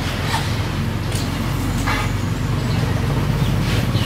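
A steady low motor hum, like an engine running nearby, with a few faint short high sounds over it.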